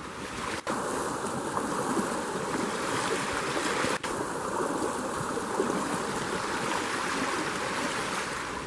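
Shallow stream rushing steadily over a rocky riffle, with waders' boots sloshing through the water. Two brief dropouts with a click come about half a second and about four seconds in.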